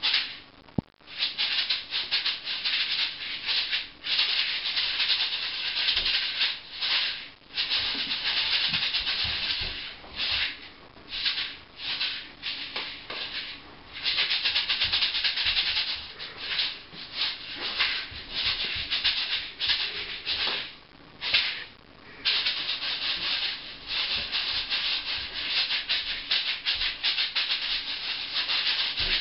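A pair of maracas shaken fast, rattling in long unbroken runs with short breaks in between.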